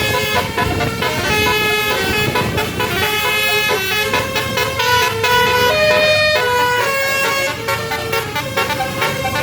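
Bus telolet horn, a multi-tone Basuri air horn, playing a running melody of short notes that change pitch every half second or so, over the low rumble of the bus.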